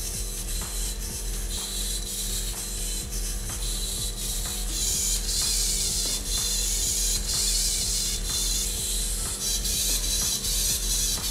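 MG995 hobby servo motors in a humanoid robot's shoulders and arms whirring and buzzing as the arms swing up and down. A steady hum runs underneath, with faint clicks at a fairly even pace.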